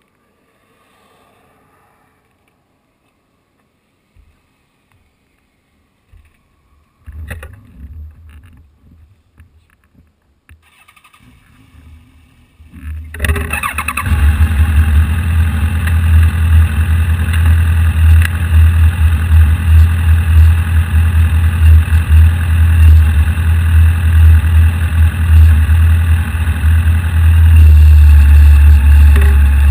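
A few knocks and rustles, then about halfway through a vehicle engine starts and settles into a steady, loud idle.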